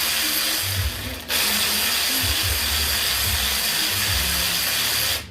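A power tool running loudly in two spells, with a short break about a second in, and cutting off suddenly near the end. Background music with a beat plays underneath.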